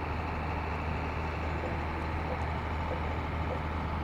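Radio-control aerobatic model plane (Great Planes Yak 55M) in flight: its motor and propeller give a steady drone with a faint steady whine.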